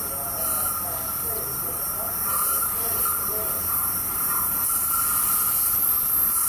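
A steady chorus of insects chirring, a high hiss with no train passing.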